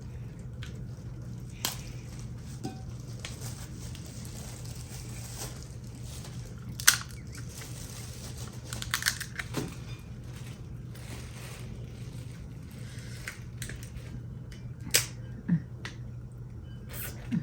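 Hard crab shells cracking and crunching as they are broken open for eating: scattered sharp cracks, the loudest about seven seconds in and again near fifteen seconds, over a steady low hum.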